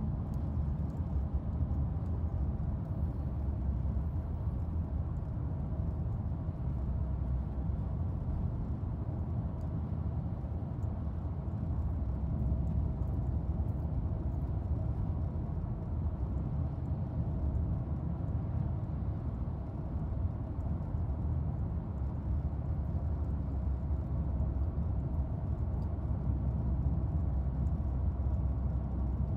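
Steady low rumble of a moving car heard from inside the cabin: road and engine noise, even and unbroken.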